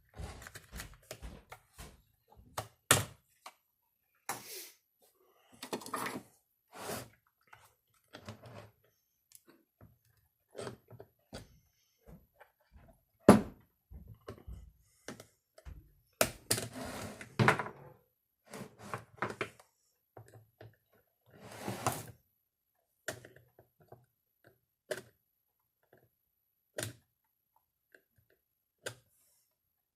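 Irregular clicks, knocks and thunks of chainsaw parts and tools being handled during disassembly, with a few short scraping or rustling noises. The loudest knock comes about 13 seconds in.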